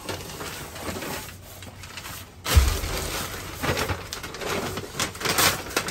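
Plastic trash bags and paper shopping bags rustling and crinkling as rubbish in a dumpster is rummaged through, with a loud thump about two and a half seconds in.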